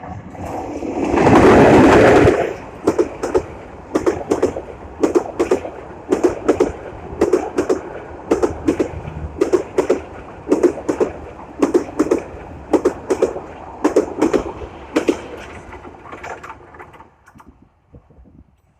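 Train passing close at speed. There is a loud rush as the front goes by, then the rhythmic clickety-clack of the coaches' wheels over the rail joints, in groups about once a second. The clatter fades away near the end as the train recedes.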